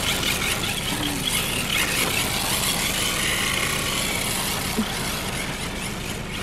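Radio-controlled drift car driving and sliding on asphalt: its small electric motor whines, rising and falling in pitch as it speeds up and slows, over the hiss of its tyres on the pavement. A steady low hum runs underneath.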